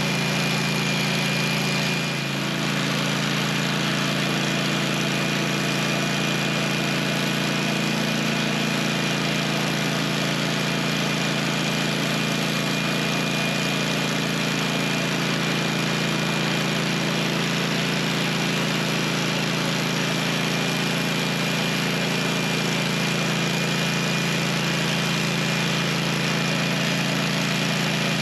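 Portable band sawmill's engine running steadily, with a thin high whine over the drone and a brief dip in level about two seconds in.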